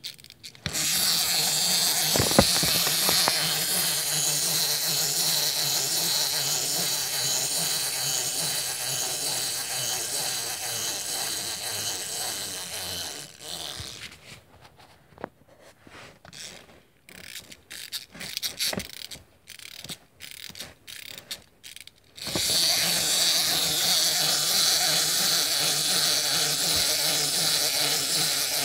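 Clockwork spring motor of a wind-up dancing robot toy running: a steady whirring buzz of its gears. About 13 seconds in it gives way to scattered clicks and ticks, and about 22 seconds in the steady whir starts again.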